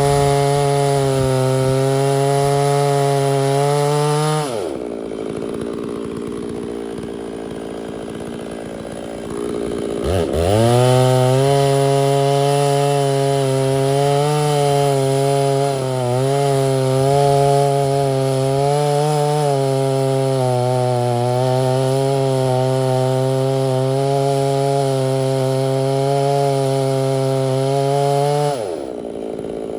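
Two-stroke chainsaw at full throttle cutting through white oak. It lets off and falls to a low idle about four seconds in, revs back up and cuts again about ten seconds in, with the pitch wavering slightly under load, then lets off again near the end.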